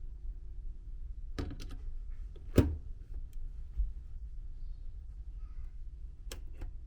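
Steady low rumble of a ferry's engines and machinery heard indoors, with a few sharp clicks and knocks, the loudest about two and a half seconds in.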